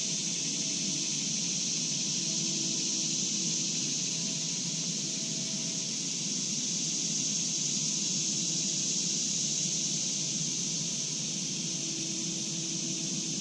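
Steady high-pitched drone of a late-summer insect chorus, with a faint low whine that comes and goes underneath.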